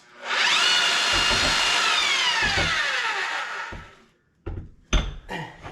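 Heavy-duty hammer drill fitted with a 4-inch core bit, its motor spinning up with a rising whine, running flat out for about two seconds, then released and winding down with a falling whine. A few short knocks follow near the end.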